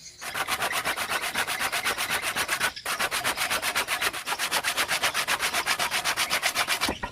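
Fast, even rasping strokes on wood, about nine a second, with a short break about three seconds in.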